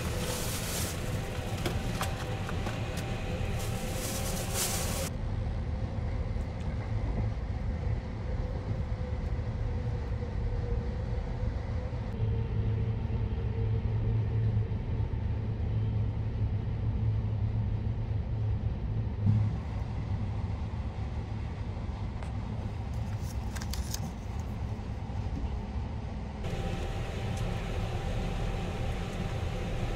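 Steady low rumble of the Sunrise Izumo sleeper train running, heard inside a compartment, with a faint steady hum above it; the rumble swells a little about halfway through.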